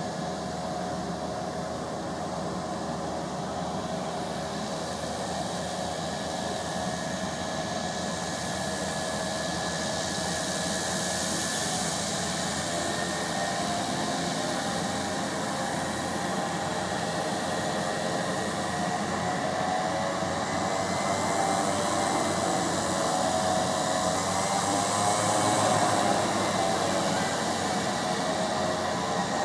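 Beechcraft King Air 250's twin Pratt & Whitney PT6A-52 turboprop engines running, a steady whine over a hum, growing slowly louder to a peak about 26 seconds in and easing slightly near the end.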